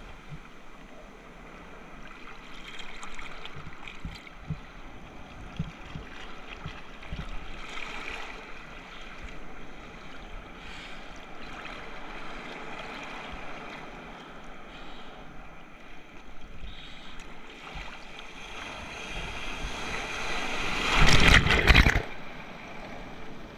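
Ocean water sloshing and splashing, with scattered low knocks and a louder rush of water near the end that cuts off suddenly.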